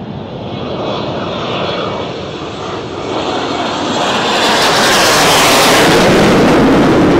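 Three BAE Hawk T1 jet trainers taking off in close formation and climbing overhead. The rushing jet noise of their engines builds steadily and is loudest and brightest around five to six seconds in, as the jets pass over.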